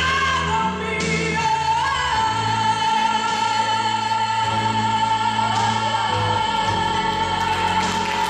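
Recorded Spanish-language worship ballad played over the sound system: a singer holds one long high note from about a second in, over a sustained accompaniment, as the song reaches its close.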